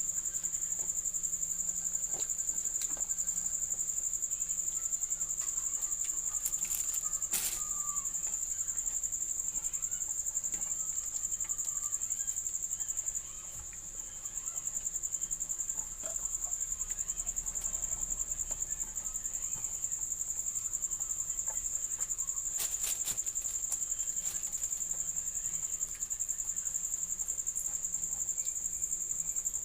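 Crickets trilling in a steady, high-pitched chorus, with a few sharp clicks about seven seconds in and again past twenty seconds.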